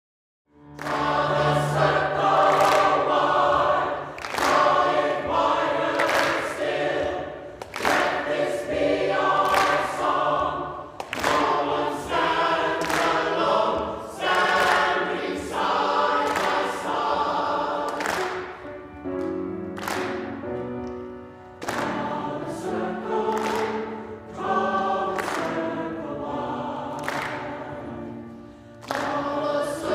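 A choir singing, starting about half a second in after silence, in phrases with short breaths between them.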